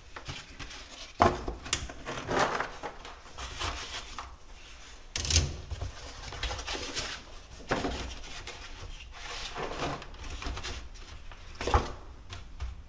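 Cardboard and plastic egg trays being handled while eggs are moved from plastic trays into cardboard ones: irregular light knocks, taps and rustling scrapes.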